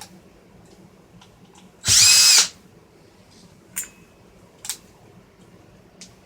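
Power screwdriver running in one short burst of just over half a second, about two seconds in, with a high motor whine as it backs out a screw from the radio's housing. A few light clicks follow.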